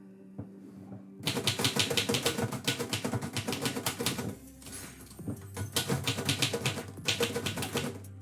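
Typewriter keys clattering in fast runs of strikes. Two runs start about a second in, with a pause of about a second between them.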